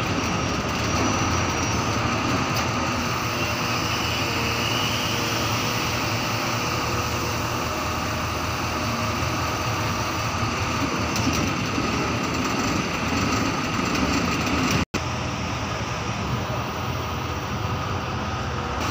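Mobile crane's diesel engine running steadily under load while it lifts a boat in slings, with a low, even hum.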